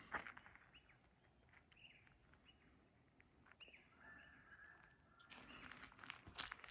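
Faint birds chirping: short falling calls every second or so, then a steady held note; soft rustling and knocks begin near the end.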